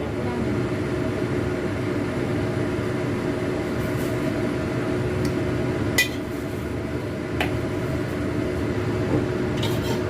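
A steady hum and hiss, with a few sharp clinks of a utensil against a cooking pan about six, seven and nearly ten seconds in.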